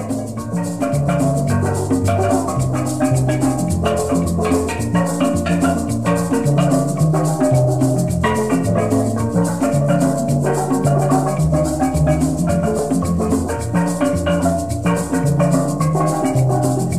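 Background music: an instrumental tune over a moving bass line with steady, rhythmic percussion.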